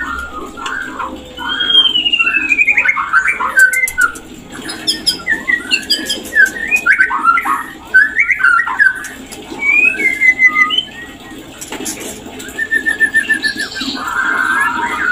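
White-rumped shama singing its mating song: a run of varied whistled phrases, with rising and falling glides and quick chattering notes, and a fast even trill near the end.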